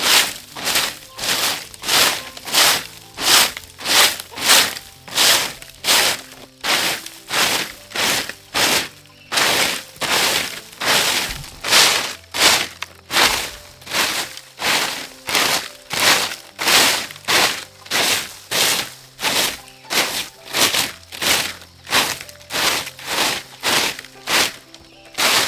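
Dry corn stalks and husks crunching and rustling in a steady rhythm of about two strokes a second, over soft background music.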